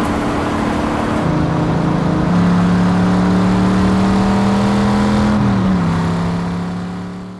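A car engine running steadily, its pitch shifting in a few steps, then fading out near the end.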